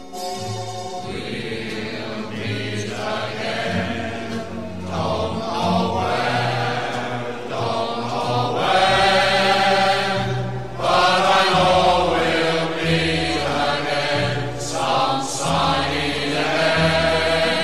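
Background music: a song with singing over a bass line.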